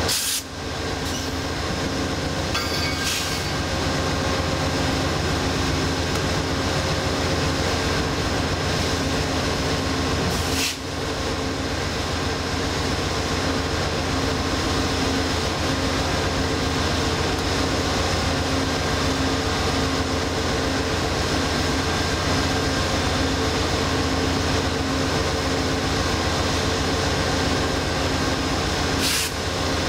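GE P42DC diesel locomotives idling at a standstill: a steady engine drone with a constant hum. A few brief sharp clicks cut through it, one about ten seconds in and another near the end.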